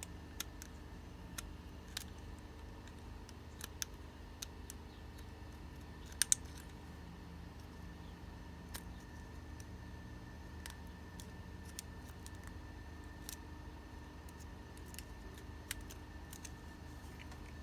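Scattered light clicks and small scrapes of hand work, a blade shaving a little material off a battery terminal fitting. The loudest is a quick double click about six seconds in, over a steady low hum.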